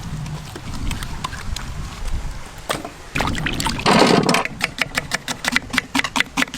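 Food preparation: a brief wet splash about four seconds in, then a steady run of sharp knocks, about four a second, from a knife chopping on a cutting board.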